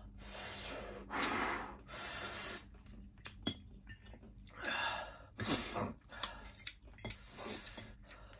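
Breathing through the mouth, hissed in and blown out in several short, sharp breaths, the way an eater cools a mouth burning from very spicy noodles. A few light clicks are heard among the breaths.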